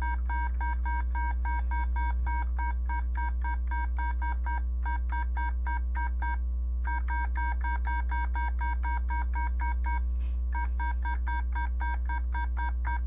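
Atari 1200XL's self-diagnostic keyboard test beeping: the same short electronic tone repeated quickly, about six times a second, with a few brief pauses, as keys are pressed. A steady low electrical hum runs underneath.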